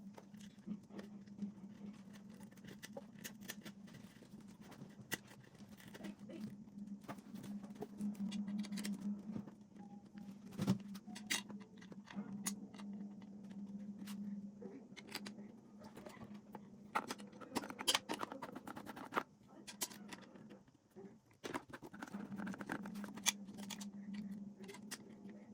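Irregular small clicks and light taps, some sharper than others, over a steady low hum.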